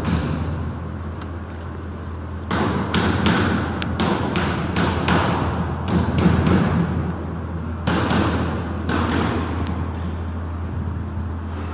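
Knocks, taps and clatter of a plastic-framed LED display module and its cable being handled and set down, in two clusters, the loudest about six seconds in, over a steady low hum.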